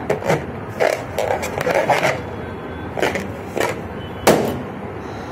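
A rubber balloon rubbing as it is squeezed hard in the arms, several short scraping noises, then one sharp loud pop a little over four seconds in as it bursts.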